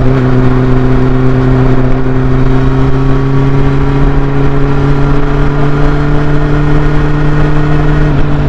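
Honda CB400 Super Four's inline-four running through a Yoshimura slip-on exhaust, under way with its note rising slowly and steadily. The pitch dips near the end.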